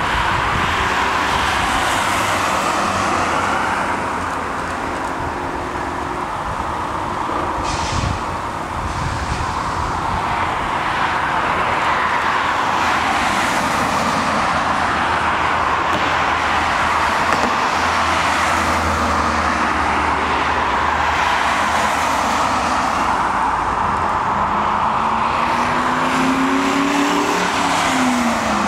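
Road traffic: cars driving past, their tyre and engine noise swelling and fading in a steady wash, with one engine rising in pitch near the end.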